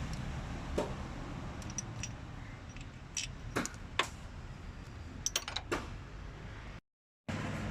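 Scattered sharp metallic clicks and clinks of hand tools against car parts over a low steady hum, with a cluster of quick clicks near the end. The sound cuts out completely for about half a second just before the end.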